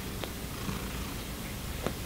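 Domestic cat purring steadily while it mouths and kneads a blanket, with two brief clicks, a faint one soon after the start and a sharper one near the end.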